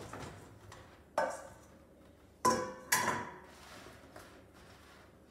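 Kitchenware clanking as seasoned potato pieces are put onto a metal baking tray: three sharp knocks with a brief metallic ring, one about a second in and two close together about two and a half seconds in.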